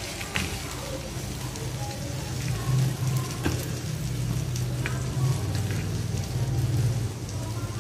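Fried fish pieces sizzling on a hot flat griddle pan (tawa) while a wooden spatula scrapes under them and taps the pan a few times as they are lifted onto a plate. A steady low hum runs underneath.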